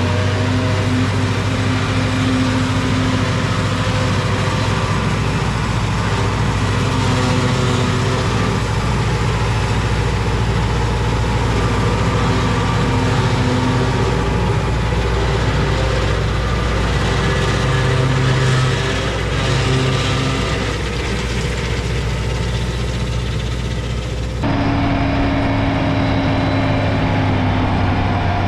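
Tractor diesel engine running steadily, with an abrupt change in its sound about 24 seconds in.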